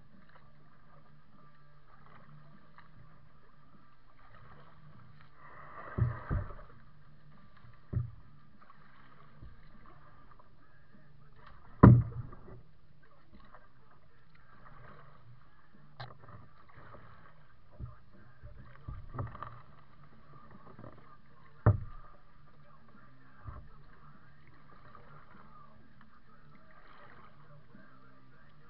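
Kayak paddling: soft paddle splashes every couple of seconds, with several sharp knocks of the paddle against the plastic hull, the loudest about twelve seconds in.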